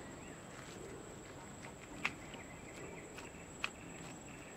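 Quiet outdoor background with faint insects chirping in an even pulse, and two short sharp clicks, about two seconds in and again about a second and a half later.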